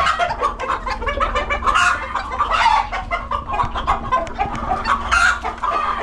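A flock of chickens clucking, many birds calling over one another in short calls.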